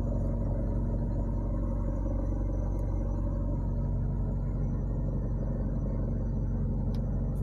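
Opel car engine idling steadily, heard from inside the cabin: a constant low hum. It runs on a junkyard replacement ECU now accepted by the immobilizer.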